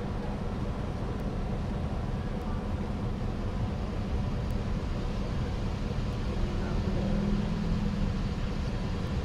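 Fire engine's diesel engine idling: a steady low rumble.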